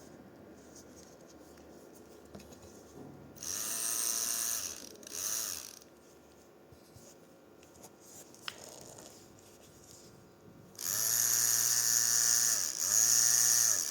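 Tattoo machine buzzing in short runs: two brief runs a few seconds in, then a steady run from about eleven seconds with a short break near the end. Each run starts with a quick rise in pitch as the machine comes up to speed.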